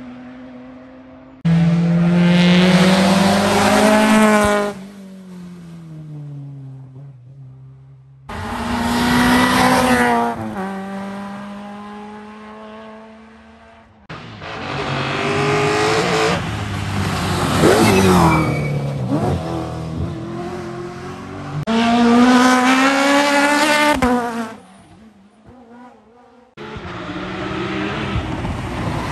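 Rally cars' engines on a tarmac special stage, one car after another in about five abrupt cuts: each engine revs hard, its pitch climbing and then falling away, with quieter gaps between the passes.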